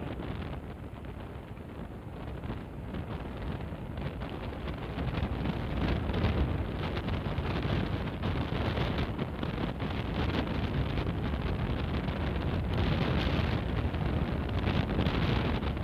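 Wind rushing over the microphone of a moving Yamaha sport motorcycle, with engine and road noise beneath. It grows louder about five seconds in and stays so.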